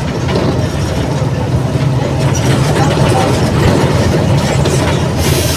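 Diesel engine of a Mercedes-Benz OF 1722M city bus running steadily with a deep, even drone.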